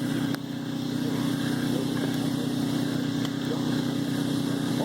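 A small motor hums steadily, with a few faint crackles and pops from a campfire.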